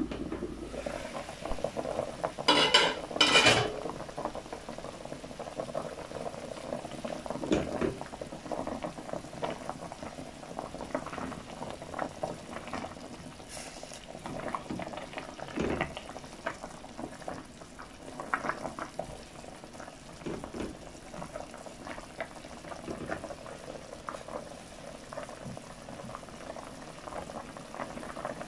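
Chicken pieces in water boiling hard in a stainless steel pot, a steady bubbling. About three seconds in come two loud clanks as the glass lid is taken off the pot, and later a wooden spatula stirs and knocks in the pot.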